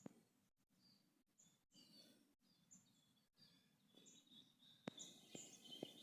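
Faint birds chirping: short, high chirps repeating every half second or so, with a couple of sharp clicks near the end.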